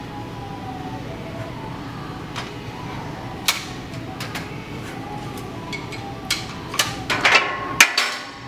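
Loaded steel barbell knocking and clanking against the steel power rack as a bench press set finishes and the bar is guided back to the rack. A few single knocks come first, then a quick run of clanks near the end, the last one the loudest. Steady background noise runs underneath.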